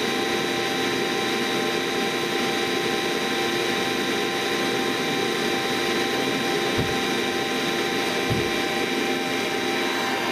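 Electric motor-generator unit running at a constant speed: an even machine whine with several steady tones. Two short low thumps come in the second half.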